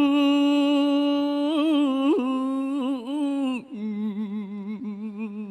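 A man's solo voice chanting Khmer smot: a long held note, then a wavering, ornamented run, then a lower held note with a slow wobble.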